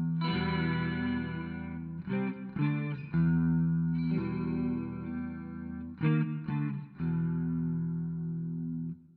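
Jackson Dinky JS22 electric guitar through an amp on a clean tone with the neck pickup: chords strummed and left to ring, with quick groups of strums about two, three and six to seven seconds in, and the last chord dying away near the end.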